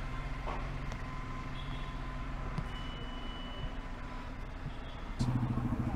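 Vehicle engine running steadily in street traffic, with a louder, pulsing engine coming in about five seconds in.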